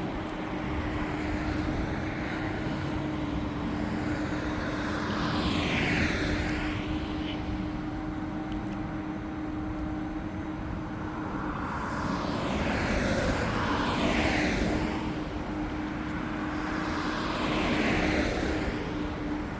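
Car driving on a road: a steady drone of engine and tyre noise with a low hum. Other vehicles swoosh past three times, about six, fourteen and eighteen seconds in.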